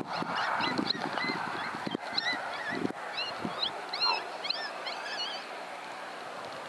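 A flurry of short, high, rising-and-falling animal calls, many overlapping, thickest in the middle, over a steady hiss, with a few soft knocks early on.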